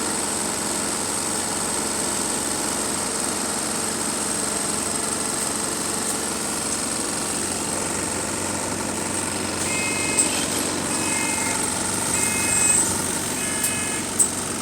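Bus diesel engine idling steadily with a rattle. About two-thirds of the way in, a short beeping signal sounds four times, and a sharp knock follows near the end.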